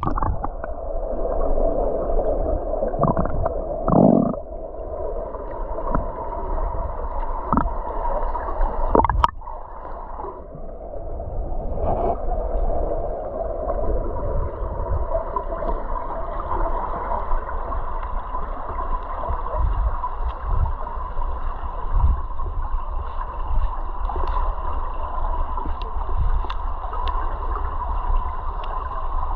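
Underwater sound through an action camera's microphone: muffled gurgling and swishing of water with a steady hum, and a few louder knocks in the first ten seconds.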